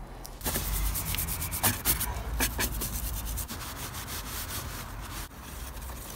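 Tissue paper rubbing along an oily motorcycle drive chain as it is wiped down: an uneven scratchy rubbing that starts about half a second in.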